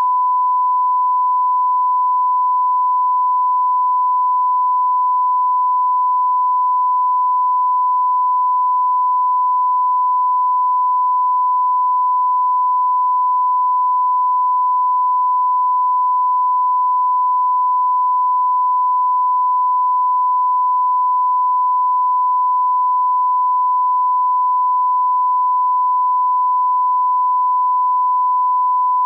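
Steady, unbroken pure test tone at one fixed pitch: the line-up reference tone that runs with colour bars, used to set audio levels.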